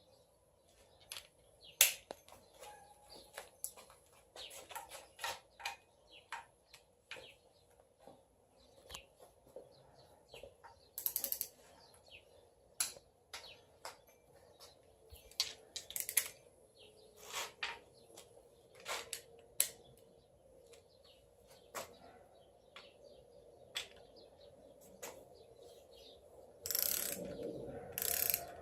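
Ratcheting torque wrench clicking in short, irregular runs as bolts on the engine are tightened down to torque. A louder metallic rattle comes near the end.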